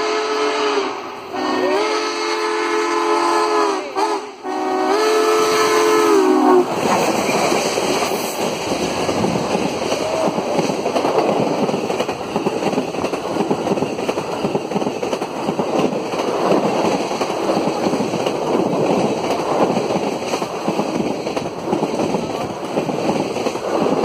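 Southern Pacific 4449, a GS-4 4-8-4 steam locomotive, sounding its chime steam whistle in three long blasts with short breaks, the last ending about six and a half seconds in. Then comes the steady rushing rumble of the engine and its passenger cars going by close at high speed.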